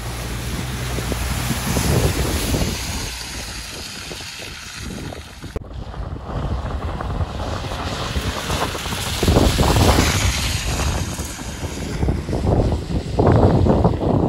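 Nissan X-Trail diesel SUV driving through water-filled muddy ruts, its tyres splashing and throwing mud over the engine, with wind on the microphone. After a sudden cut about five and a half seconds in, a Toyota RAV4 hybrid's tyres spin and throw dirt as it drives past, in two loud surges.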